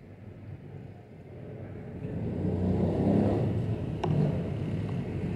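Low rumble of road traffic that swells up about two seconds in and stays up, with one short click a couple of seconds later.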